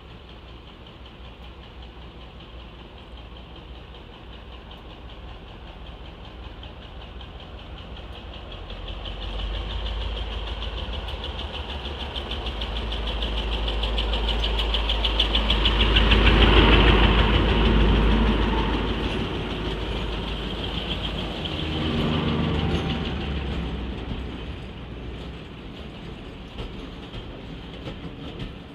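Two diesel-hydraulic locomotives, Class 35 Hymek D7076 leading Class 42 Warship D832 'Onslaught', pull a train away and past the listener. Their engine noise builds, with a fine even throb and a deep rumble, and is loudest about sixteen seconds in as the leading locomotive goes by. A second, smaller swell comes about twenty-two seconds in, and the noise then eases as the coaches roll past.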